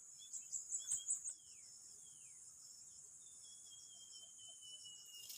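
Insects, likely crickets, buzzing steadily in a high register. Small birds add a quick run of short high chirps about a second in, two brief falling whistles, and then one long, slowly falling whistle.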